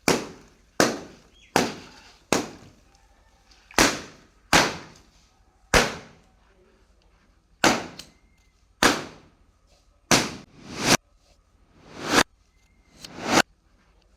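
Balloons popping one after another: about a dozen sharp bangs, roughly one a second with a few longer gaps, some with a short rising swell just before the pop.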